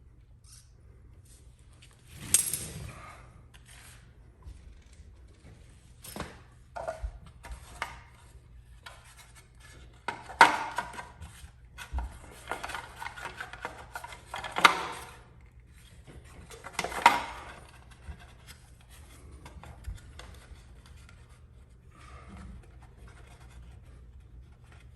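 Irregular scraping and rubbing with scattered sharp knocks, like tools or metal parts being handled. Several louder scrapes about 2, 10, 14 and 17 seconds in, over a faint steady low hum.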